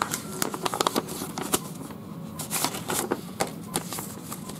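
Paper being handled: a black paper envelope is opened and a stiff parchment-style sheet is pulled out and unfolded, giving a run of short crisp rustles, crackles and ticks.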